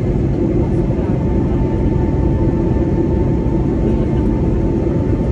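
Airbus A320neo cabin noise in the climb after take-off, heard inside the cabin by the wing: a steady, loud drone of the turbofan engines and rushing airflow. About a second in, a thin steady whine comes in over it.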